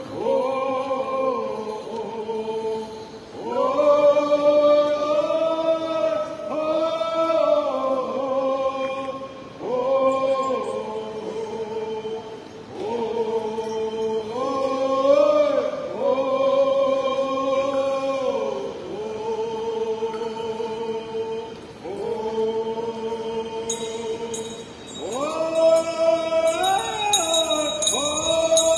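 Several men singing a Native American prayer blessing song together in long held phrases, the melody stepping up and down between phrases. A high ringing joins near the end.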